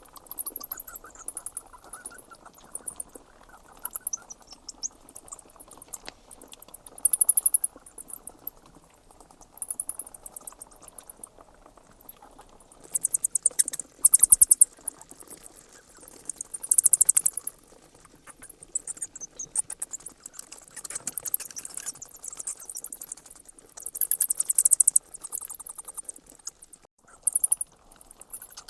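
Bats squeaking: rapid trains of very high-pitched chirps that come in bursts of a second or so, again and again.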